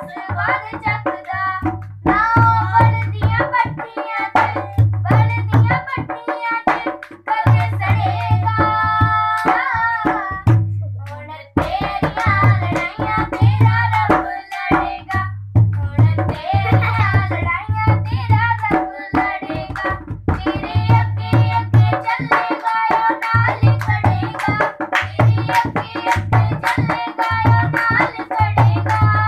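Church worship song: voices singing a melody over a drum beat and bass, with a brief break about ten seconds in.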